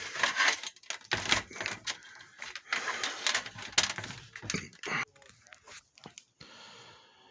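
Handling noise: a quick run of clicks, knocks and rustles, as of objects being picked up and moved about, growing sparse near the end.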